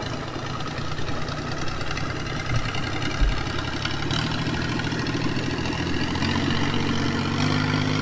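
Longtail boat engine running at low revs, its note stepping up a few times as the boat gets under way.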